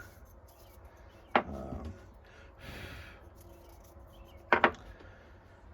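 A person blowing a short puff of breath on a freshly cleaned knife part to evaporate the cleaner, about halfway through. A sharp click comes before it and two quick knocks near the end, from things being handled on the workbench.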